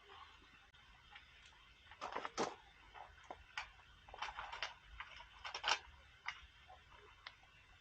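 Irregular light clicks and taps, a dozen or so scattered over several seconds, the sharpest about two and a half and five and a half seconds in.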